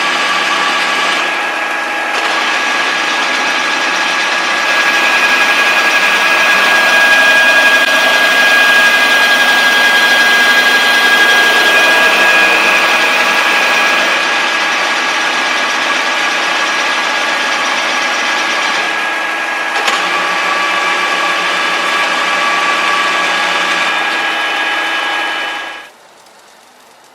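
Knuth UWF 4 universal milling machine running with a steady mechanical whine that shifts slightly a few times, then stops suddenly near the end.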